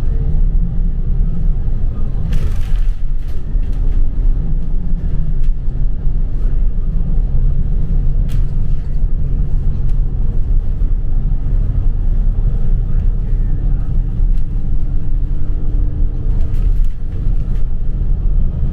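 Steady low engine and road rumble inside a moving bus, with a faint steady hum and a few brief knocks.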